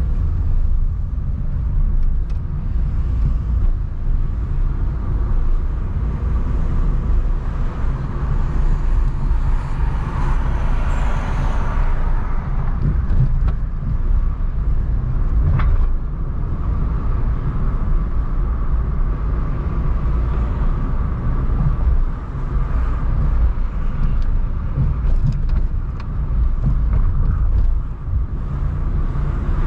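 Car driving through city streets: a steady low rumble of engine and tyres, with a swell of louder road noise about ten seconds in and a single sharp click a little past halfway.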